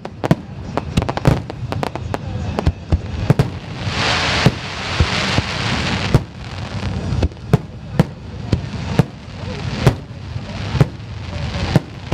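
Aerial fireworks display: a rapid, irregular string of sharp bangs from shells bursting overhead, with a few seconds of dense hissing crackle about four seconds in.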